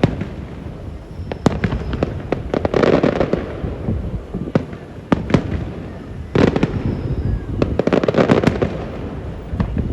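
Fireworks display: deep booms of aerial shells bursting, among many sharp crackles and pops, with a heavy cluster of bursts about midway through.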